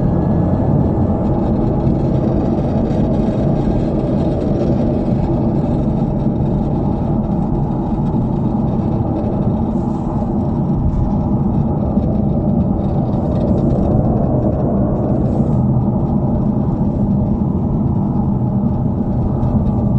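Subaru WRX with a Fujitsubo Authorize RM+C exhaust driving, heard from inside the cabin: a steady engine and road rumble.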